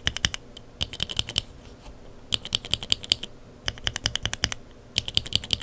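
Lubed linear mechanical keyboard switches with Kailh Burgundy stems, in Cherry and Outemu Sky housings, pressed rapidly in about five bursts. Each stroke gives a sharp click as it bottoms out and returns.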